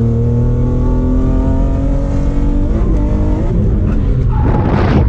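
BMW M50B25 2.5-litre inline-six through an ISR blast-pipe exhaust, pulling under load with its pitch climbing steadily. The pitch breaks and climbs again about three seconds in, and a loud rushing noise takes over near the end.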